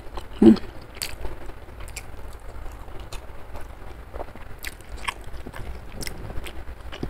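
Close-miked chewing and biting of a mouthful of rice with spicy tempe and squid sambal, heard as scattered short wet mouth clicks, with one louder sound about half a second in.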